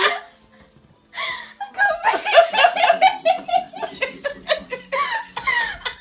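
Hearty laughter in rapid short bursts. It starts about a second in, after a brief lull.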